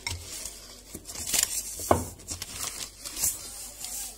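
Baking paper crinkling and rustling as it is handled under a rolled-out sheet of shortcrust dough, with a sharp knock about two seconds in as the wooden rolling pin is set down on the counter.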